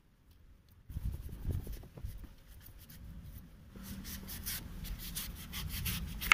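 Small kitchen knife slicing and scraping the rind off a muskmelon on a wooden cutting board: quiet, repeated scratchy strokes that start about a second in.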